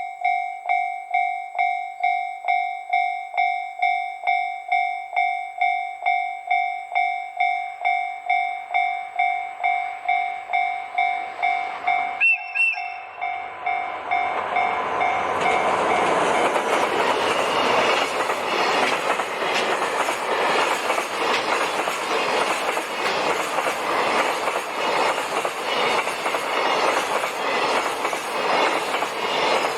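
Railway level-crossing alarm dinging steadily about two and a half times a second. About twelve seconds in, a JR Freight DF200 diesel-electric locomotive gives a short, light toot of its horn. The train then passes close by, its noise drowning out the alarm, with the wheels of the freight wagons clattering rhythmically over the rail joints.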